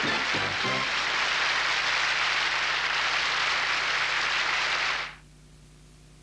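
Studio audience applauding, with a few notes of band music at the start; the applause stops about five seconds in, leaving only a faint low hum.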